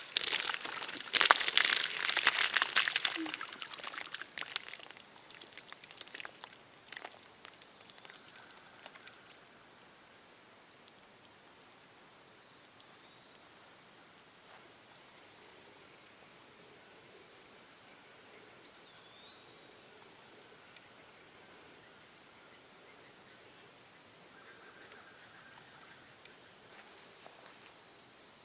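Green slime splattering and crackling for about three seconds as it is dumped over a person, followed by crickets chirping steadily, about two chirps a second, over a faint high insect hum.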